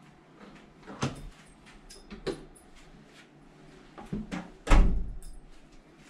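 Room door being handled: a few separate clicks and knocks, then a heavy thump about three-quarters of the way through, like a door shutting.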